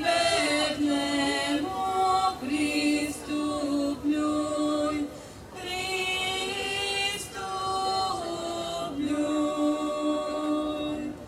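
Small group of folk singers singing an unaccompanied Christmas song in traditional style, women's voices leading, in long held notes with short breaks between phrases.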